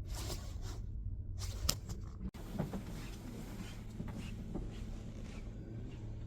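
Indoor room tone: a steady low hum with scattered light clicks and rustles, and a brief dropout a little over two seconds in.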